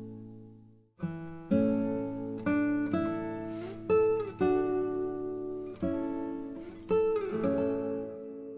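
Background music of acoustic guitar strumming chords, breaking off for a moment about a second in and dying away near the end.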